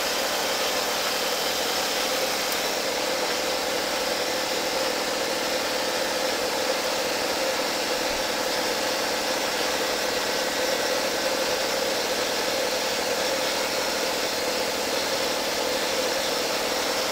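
Steady machine hum with a faint steady tone, a motor running at constant speed without change.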